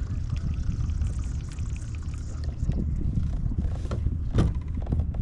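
Water splashing and trickling against a kayak over a steady low rumble, with a sharper splash about four seconds in.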